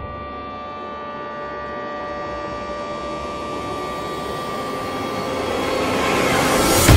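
Jet aircraft engine sound: a steady high whine over a rushing noise that grows louder and brighter over several seconds, then breaks off abruptly near the end.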